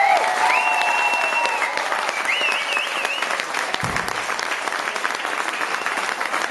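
Audience applauding, with high whoops and cheers above the clapping during the first three seconds.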